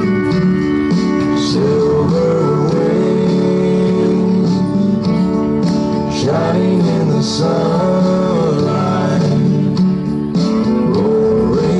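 Country music with a singing voice and guitars, including sliding steel-guitar-like notes.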